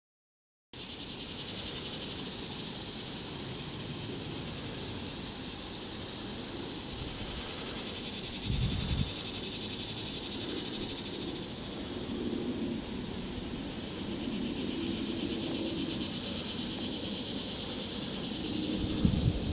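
Steady high-pitched drone of cicadas, with two brief low thumps, about halfway through and near the end.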